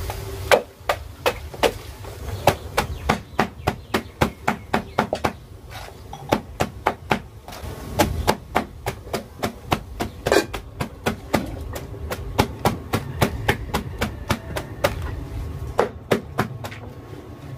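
Cabbage being chopped by striking it with the rim of a steel tumbler in a woven basket: quick sharp knocks, about three a second, pausing briefly twice.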